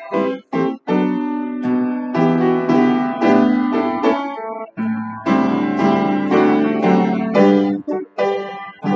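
Upright piano playing a choral anthem's accompaniment in full chords with sustained bass notes, the phrases separated by brief breaks.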